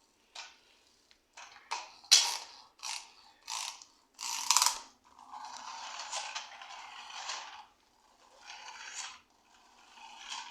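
Spring motor and gears of a plastic pull-back beetle bug toy car: a run of short ratcheting whirs as it is pulled back to wind it, then a longer gear whir of about two and a half seconds as it runs, and two shorter whirs near the end.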